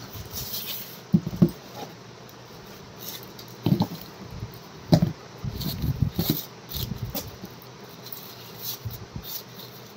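Shoes being handled and set down on a wooden table: an irregular run of soft knocks and rustles.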